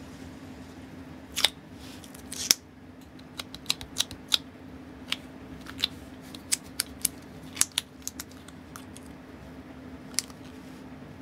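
Very sticky, gummy grey Rodico watch-cleaning putty being pressed onto a steel watch case back and peeled off latex finger cots. It gives an irregular scatter of sharp little ticks and snaps as it tears away, over a steady low hum.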